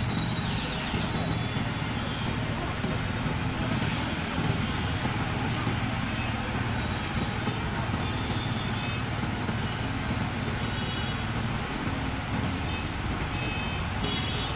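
Steady street traffic noise, with faint voices in the background.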